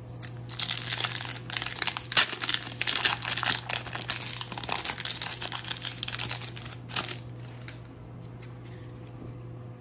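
Foil wrapper of a baseball trading card pack being torn open and crinkled by hand: a dense run of crackling rustles that stops about seven seconds in.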